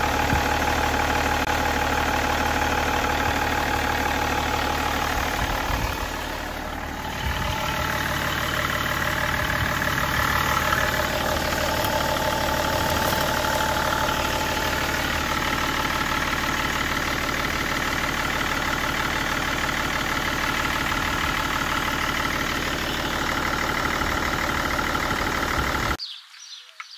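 BMW 530d's M57 straight-six diesel engine idling steadily, dipping briefly about six seconds in and cutting off about a second before the end.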